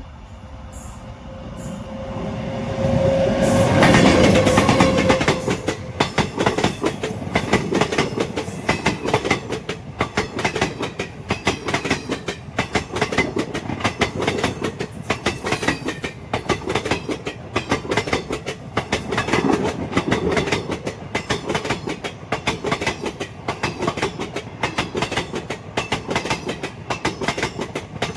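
A train passing close by on the track: it comes up over the first few seconds and is loudest about four seconds in, with a steady tone sounding at the same time. The wheels then keep clattering over the rail joints in quick, continuous clicks as the cars roll past.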